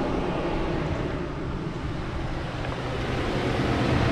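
1991 Toyota Pickup on the move, its 3.0L V6 engine running steadily under road noise, growing louder near the end.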